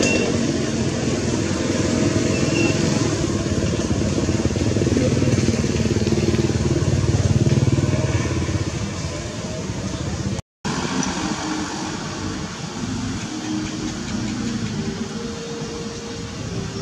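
A motor vehicle engine running steadily. It breaks off in a brief dropout a little past ten seconds in, then goes on somewhat quieter.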